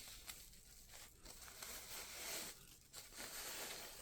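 Paper wrapping rustling and crinkling as it is handled and pulled apart, in a few spells with short pauses between them.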